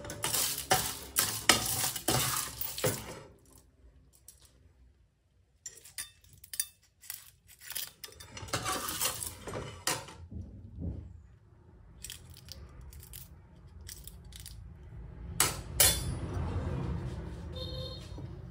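Small wedge clam (telline) shells clinking and rattling against a metal ladle and a ceramic plate as they are spooned out of an aluminium pan, with the ladle scraping the pan. Quick runs of clicks and clinks come in several bouts with short pauses between.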